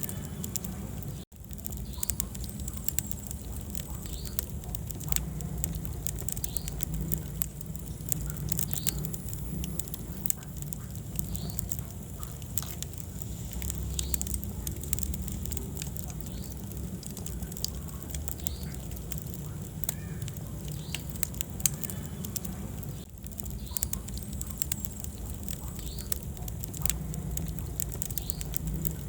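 Wood fire crackling in a fireplace: frequent sharp pops and snaps over a steady low rumble of burning, with the sound cutting out for an instant about a second in.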